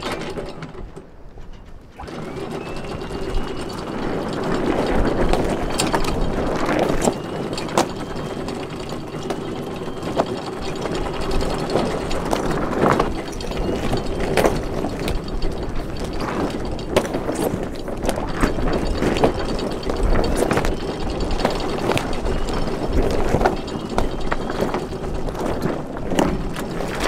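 Sailboat deck gear working during anchoring under sail: a steady run of mechanical clicking and rattling starts about two seconds in, with a faint short rising whine every couple of seconds.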